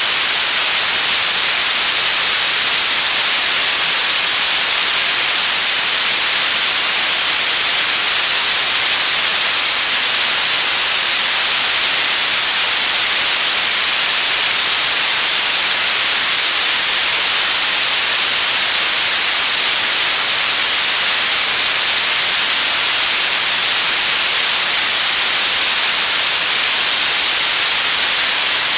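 Television static: loud, steady hiss of an untuned analogue TV, bright and high-pitched, unchanging throughout.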